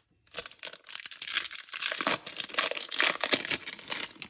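Foil wrapper of a Topps Chrome baseball card pack crinkling and tearing as it is ripped open by hand. A dense run of crackles starts about half a second in.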